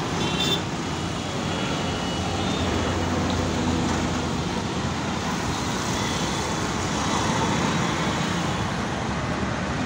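Steady road traffic noise from cars, motorbikes and auto-rickshaws passing on the roadway, with a brief high tone about half a second in.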